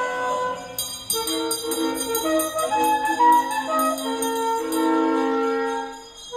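Contemporary chamber music: held, sliding tones from viola and a reed instrument, layered with a rapid bell-like jingling, about four strikes a second, that starts about a second in and stops near the end; the music then fades briefly.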